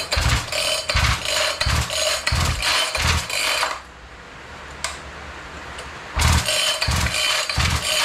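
Husqvarna K1270 concrete saw's two-stroke engine being pull-started: a run of quick starter-rope pulls, a quieter gap of about two seconds, then another run. The engine turns over but does not catch because the tank has no petrol.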